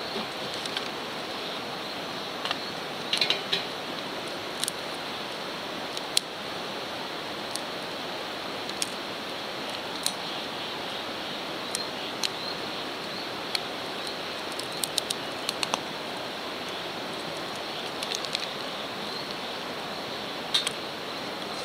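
Wood fire burning in a Solo Stove wood-burning camp stove: a steady rushing burn with sharp crackling pops at irregular times.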